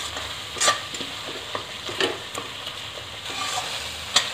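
Tomato and spice masala sizzling in a stainless steel kadai while a metal spoon stirs and scrapes it, with a few sharp clinks of the spoon against the pan. The masala is being fried (bhuna) until the oil separates from it.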